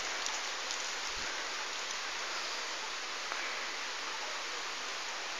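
Steady rushing of water, an even hiss with no breaks.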